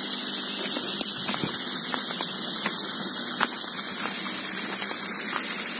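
Steady high-pitched hiss of outdoor forest ambience, with a few faint scattered ticks.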